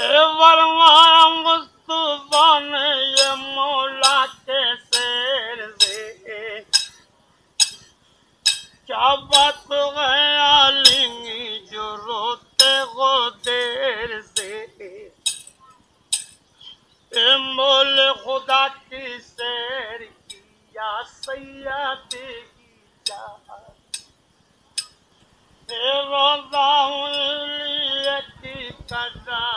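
A voice singing a wavering melody in phrases several seconds long with short pauses between, over a regular clinking beat.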